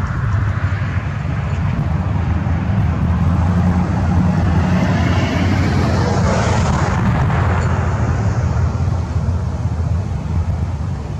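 Steady low rumble of road traffic, with a vehicle passing about six seconds in, its noise swelling and fading.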